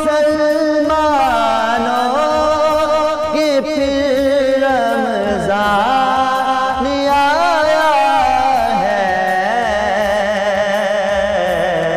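A man singing an Urdu Ramadan naat, drawing out a long ornamented line with wavering vibrato and gliding pitch.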